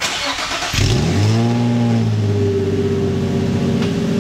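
Infiniti G35's VQ35DE V6 being started through resonated test pipes in place of the catalytic converters, with the stock muffler: the starter cranks briefly, the engine catches and flares up in revs, then settles into a steady idle about two seconds in.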